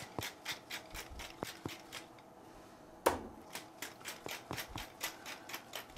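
Hand-twisted pepper mill grinding over a fish fillet, a rapid even series of gritty clicks, about three to four a second. The grinding pauses briefly and a single sharp knock comes about three seconds in, then the clicking resumes.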